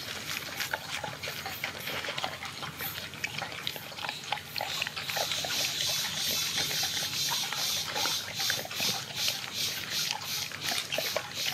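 A dog eating from a steel bowl, a run of short chewing and crunching sounds on kibble and moist food.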